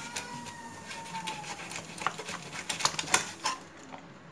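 Sharp clicks and snips of a blade cutting the fins off a catfish, with a quick cluster of louder clicks about three seconds in.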